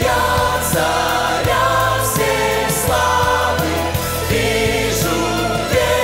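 Large mixed choir singing a worship song in Russian over a band, with held bass notes and a steady beat of drum hits.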